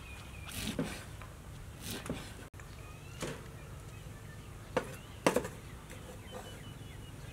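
Cleaver chopping soaked glass noodles on a wooden chopping block: several separate chops at uneven intervals, the loudest a little past the middle.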